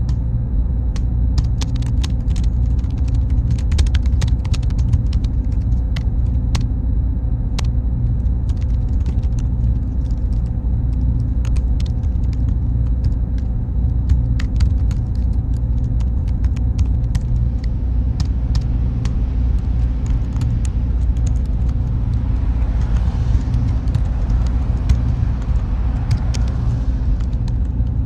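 Steady, loud low machine rumble of server-room ambience, with a faint thin high tone and scattered faint clicks. A soft hiss swells and fades near the end.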